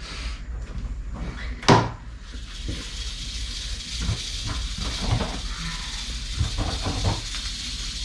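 A sharp snap from the plastic trash-can lid about two seconds in, then a steady high hiss with light knocks from the can being handled. The hiss is typical of a Mexican west coast rattlesnake rattling inside the can.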